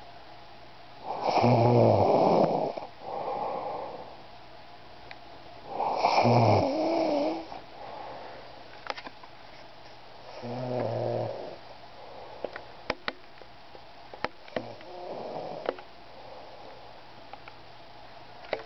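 A sleeper snoring in a slow rhythm: four snores about every four and a half seconds, the last one weaker, each of the first two followed by a softer breath out. A few faint clicks fall between the later snores.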